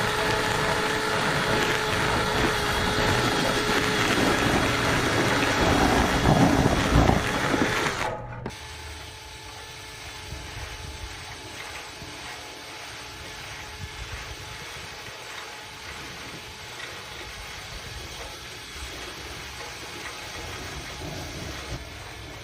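A loud, steady motor runs for about eight seconds and cuts off suddenly. After that comes a quieter whirr with small clicks and rattles: a drill spinning a rotary dryer-vent cleaning brush through the duct.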